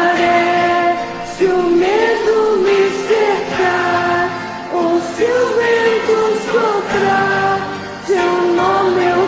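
Women singing a slow melody in long held notes over a karaoke backing track.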